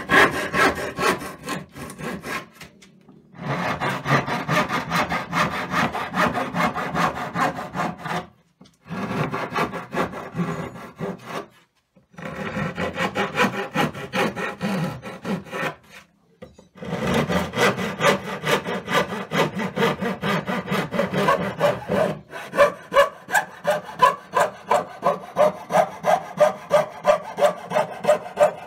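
Hand sawing wood: a backsaw cutting down the cheeks of tenons in a board, in stretches of back-and-forth strokes broken by short gaps. From about three-quarters of the way in, a coping saw takes over in quick, even strokes, about three a second, cutting out the waste between the tenons.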